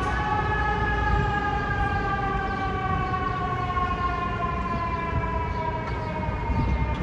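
FDNY fire engine's siren, a single long wail that falls slowly and steadily in pitch, typical of a mechanical Q-type siren coasting down, over a low rumble of street traffic.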